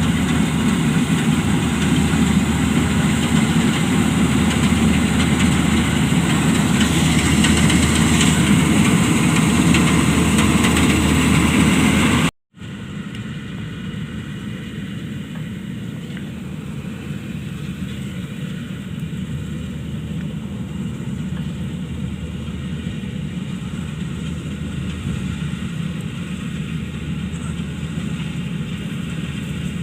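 Combine harvester engine running steadily. A brief cut about twelve seconds in is followed by the same steady machine noise, quieter.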